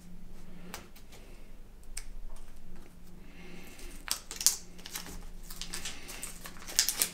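Hands working a foam deck pad and its adhesive backing on a surfboard: scattered small clicks and rustles, a longer rustle about two seconds in, and a few sharper clicks around four seconds in and near the end.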